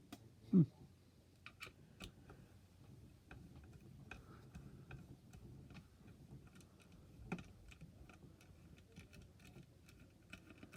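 Faint, scattered clicks and taps of small metal parts and a screwdriver being handled while a graphics card is taken apart. About half a second in there is one short sound that slides down in pitch.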